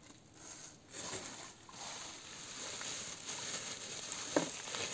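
Plastic carry bag rustling and crinkling as it is handled and lifted, with one brief sharp sound a little after four seconds in.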